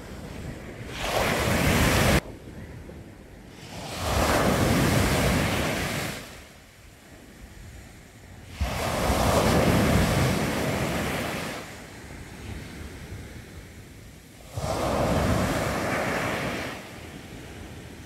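Sea waves breaking on a sandy beach: four waves crash and wash up the sand one after another, a few seconds apart, with quieter lulls between them. The first wave cuts off suddenly about two seconds in.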